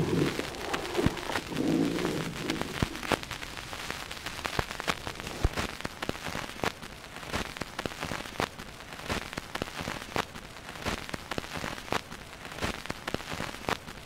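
Surface crackle of a 1970s cereal-box cardboard record under the stylus: a steady hiss with many irregular clicks and pops. A low sound fades out in the first couple of seconds.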